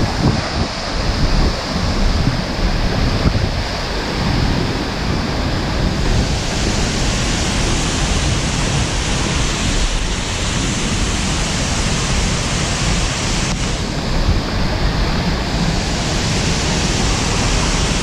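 Seljalandsfoss waterfall's steady rush of falling water heard close up, with wind buffeting the microphone, strongest in the first few seconds.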